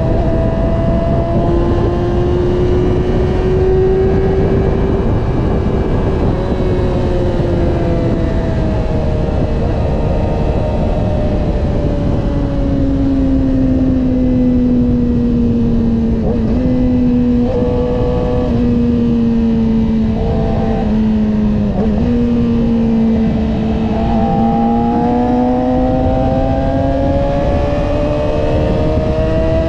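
Yamaha R6's inline-four engine with an Akrapovič exhaust, heard from the moving bike at highway speed. Its pitch falls steadily through the middle as the bike slows, breaks briefly a few times, then climbs again near the end as it accelerates.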